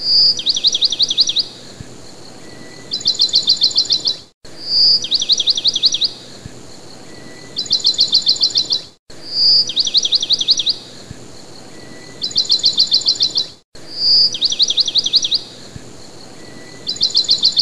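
Looped birdsong laid over as background: a rapid high trill followed by a quick series of falling chirps, then another trill. The same few seconds repeat about four times, each repeat separated by a brief cut-out.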